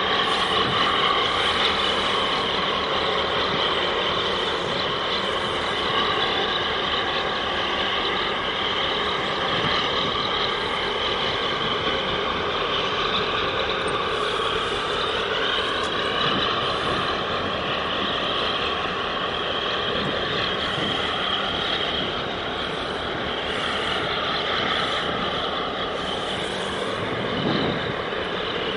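Steady drone of marine diesel engines working, with several whining tones that slowly drift in pitch. This is typical of harbour tugs pushing a large container ship in to berth.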